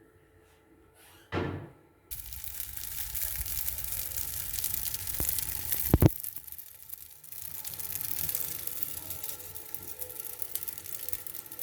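Food sizzling in a hot pan, a steady hiss that starts abruptly about two seconds in. There is a brief loud clatter just before it and a sharp knock about six seconds in.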